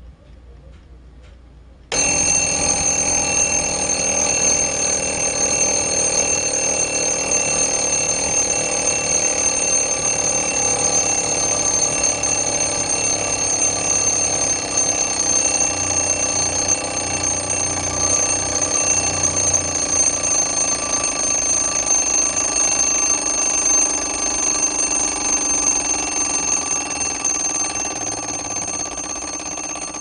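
Westclox alarm clock ticking faintly, then about two seconds in its alarm bell goes off, ringing loudly and continuously and easing off slightly near the end.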